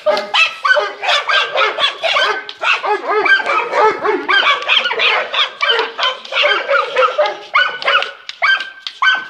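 Dogs, a Doberman and a Staffordshire terrier, barking excitedly in rapid, closely packed barks with hardly a pause.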